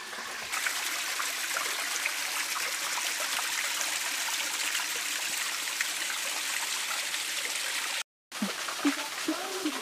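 A small waterfall trickling and splashing down wet rock ledges: a steady rushing hiss with fine droplet splashes. The sound cuts out for a moment about eight seconds in.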